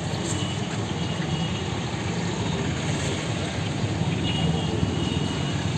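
Steady roadside traffic noise, an even rumble with no pauses or distinct events.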